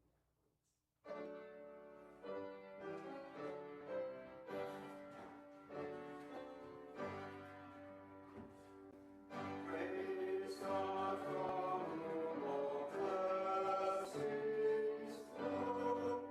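Church music: a piano begins playing about a second in, and a choir comes in with it about nine seconds in, making the music fuller and louder.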